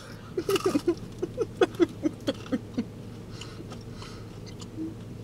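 Someone chewing a chicken nugget, making a quick run of short pitched closed-mouth vocal sounds (hums or muffled laughs) through a full mouth over the first three seconds. Quieter chewing clicks follow over a low steady hum.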